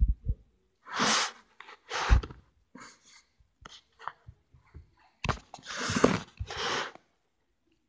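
A small dog huffing and snuffling right against the microphone: several short bursts of breath, the longest about two-thirds through, with faint clicks and rubs between them.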